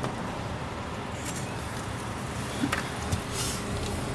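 Car engine idling, heard from inside the cabin as a steady low hum, with a few light clicks and a short hiss partway through.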